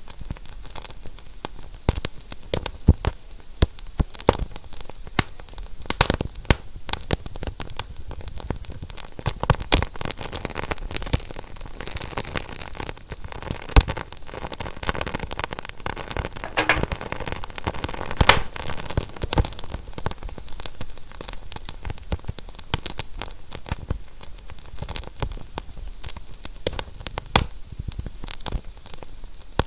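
Fire crackling: frequent irregular sharp pops and snaps over a steady hiss, the hiss growing louder for several seconds around the middle.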